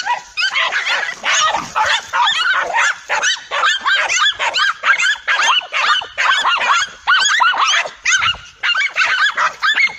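Several dogs barking and yelping over one another in a rapid, unbroken stream of short high barks, the aggressive barking of a pack of dogs attacking a large lizard.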